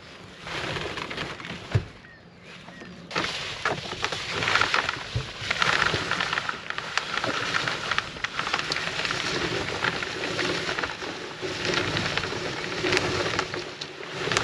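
Rain falling close to the microphone, a dense hiss that grows heavier about three seconds in and rises and falls, with scattered sharp taps of drops.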